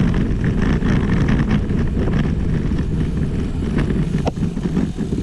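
Wind buffeting the microphone on a moving bicycle, a steady low rumble that eases a little near the end, with a short click about four seconds in.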